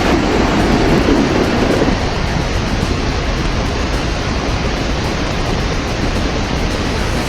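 Storm wind and rain: a steady, loud rushing noise with no distinct events, a little heavier in the lower range for the first couple of seconds.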